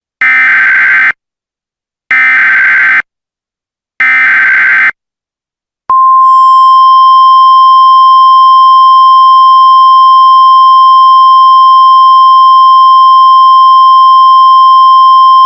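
Emergency Alert System tones: three buzzy bursts of SAME digital header data, each just under a second long and about two seconds apart, followed by a loud, steady single-pitch attention tone held for about ten seconds.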